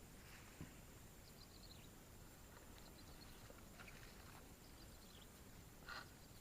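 Near silence with quiet outdoor background: a few faint, high-pitched chirps that fall in pitch, typical of small birds, and one slightly louder short call near the end.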